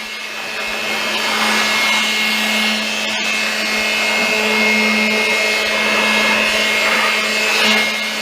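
Handheld electric air blower running steadily with a motor whine, blowing dry dust off a window air conditioner's coils; the rush of air rises and falls a little as the nozzle moves.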